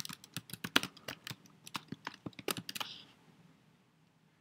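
Typing on a computer keyboard: a quick run of keystrokes for about three seconds, then it stops.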